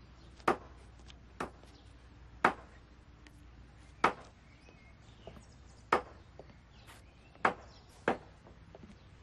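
A series of sharp single strikes, about seven, coming at uneven gaps of one to two seconds, like strokes of a blade chopping, over a faint steady low hum.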